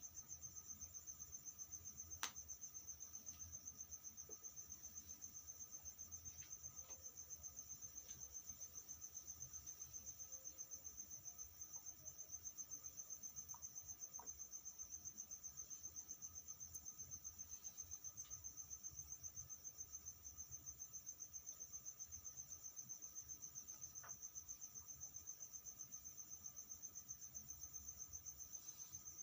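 Faint, continuous high trill of a cricket, pulsing rapidly and evenly without a break, with a few faint clicks.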